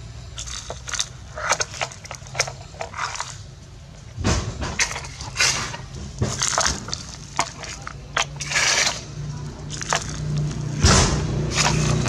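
Sand and small pebbles being scraped up by a plastic toy excavator bucket and tipped into a plastic toy dump truck's bed: irregular scraping, crunching and clicking, with short runs of pouring grit. A low steady hum sits underneath and grows louder near the end.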